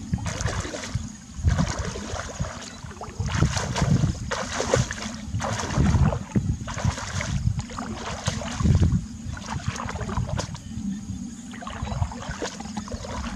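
Legs wading through shallow muddy water, a surge of sloshing and splashing with each stride, about once a second.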